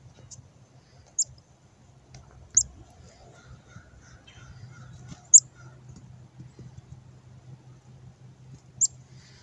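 Black-capped chickadee calls: about five short, high, squeaky notes, spaced one to three seconds apart.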